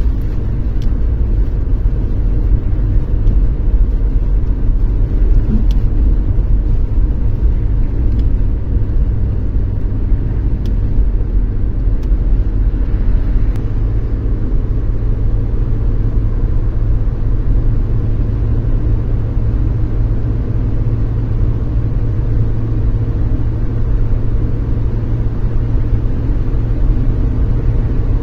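Steady low rumble of a car driving along a highway, heard from inside the cabin: tyre and engine noise at cruising speed.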